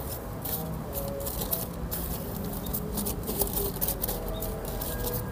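Hands working potting soil in black plastic polybags: a run of soft, irregular crackles and rustles.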